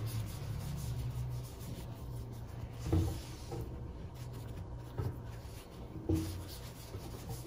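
Crochet hook working chunky acrylic yarn: soft rubbing and scraping of yarn on hook, with a few light knocks about three, five and six seconds in, over a low steady hum.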